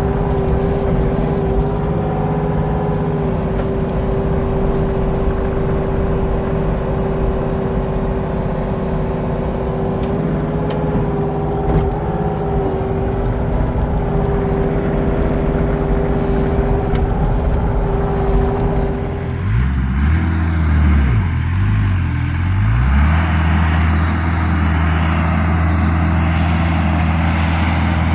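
Engine of a compact earthmoving machine running steadily under work. About two-thirds of the way through the sound changes abruptly to a deeper engine note that swings briefly up and down in pitch, then holds steady.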